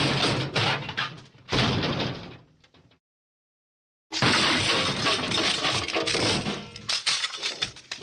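MGM 'Elephant Smash' cartoon crash effect: big smashes of breaking glass and tumbling debris. One crash with a second hit about a second and a half in dies away, then after a second of silence a longer crash starts about four seconds in and rattles down over several seconds.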